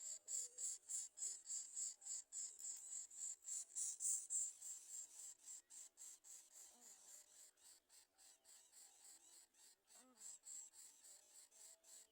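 Faint, high-pitched insect chirring pulsing about three times a second, loudest about four seconds in, with a few short low calls near the middle and end.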